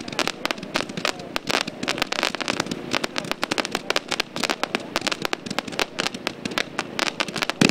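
Pyro Diablo 'Dragon King' 500-gram zipper cake, a 432-shot rapid-fire consumer firework, firing in an unbroken stream of sharp pops, several a second, with a louder report near the end.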